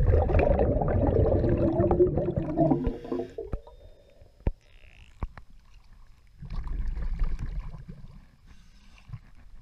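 Scuba regulator exhaust bubbles gurgling underwater for about the first three seconds. After a quieter stretch with a few clicks, water sloshes near the end as the camera comes up at the surface beside the boat's hull.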